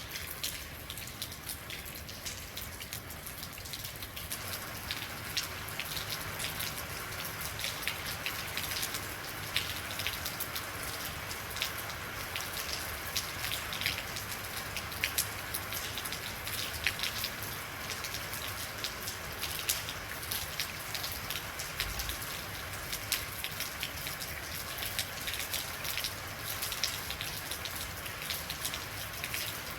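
Real rain falling steadily, a dense patter of individual drops hitting surfaces, growing a little heavier about four seconds in.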